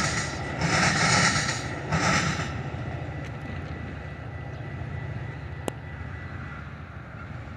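Metra bilevel commuter train passing slowly: a rush of wheel noise about once a second for the first couple of seconds as the cars cross the junction, then a low steady rumble slowly fading as the train moves away, with a faint thin whine and one sharp click.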